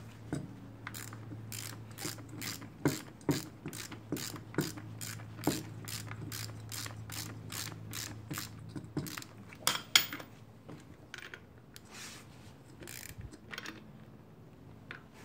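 Ratchet wrench clicking in repeated strokes as the tie rod end nut is run down tight, about three clicks a second, thinning out over the last few seconds.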